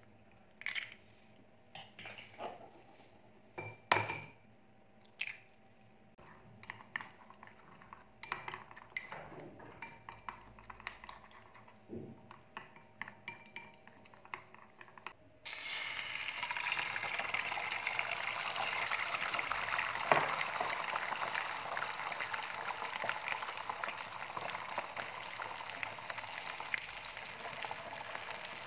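Eggs cracked on the rim of a ceramic bowl, a few sharp knocks, then beaten with wooden chopsticks in the bowl, a quick light clicking. About halfway through, beaten egg sizzles steadily in a hot frying pan, starting suddenly and louder than the beating.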